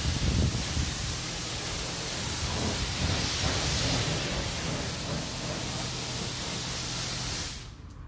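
Self-service car wash pressure-washer wand spraying a jet of water onto a car's body: a steady, loud hiss that cuts off suddenly near the end.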